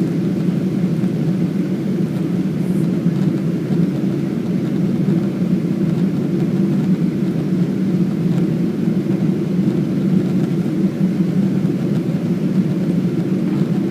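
Steady cabin roar inside a Boeing 777-200ER airliner in flight after takeoff: engine and airflow noise, a deep even rumble with no change.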